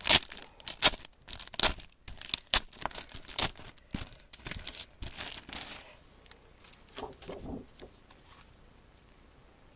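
Clear plastic packaging sleeve crackling and rustling as a stack of scrapbook paper is pulled out of it: a run of sharp crackles for about six seconds, then softer paper handling that dies away.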